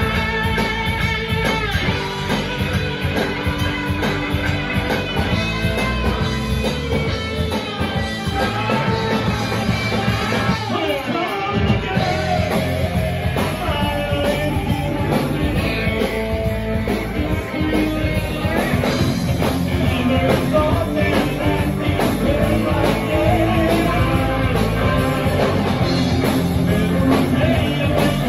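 Live rock band playing: electric guitar, bass guitar and drum kit, with a lead singer.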